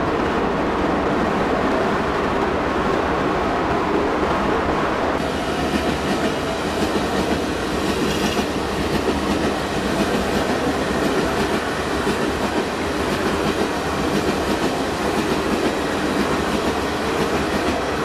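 A train running on rails: a steady, dense rushing noise, altered with audio effects, that turns brighter about five seconds in.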